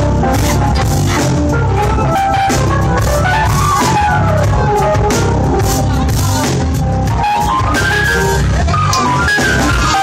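Live band music: a Yamaha electric keyboard and a drum kit playing together, with a strong bass and a steady beat.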